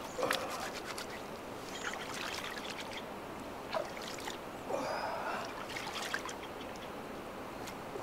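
Water trickling at the lake's edge, with a few short clicks and rustles over it.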